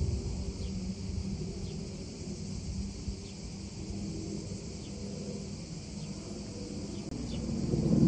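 Steady, shrill drone of an outdoor insect chorus, with faint short chirps about once a second, over a low rumble that swells near the end.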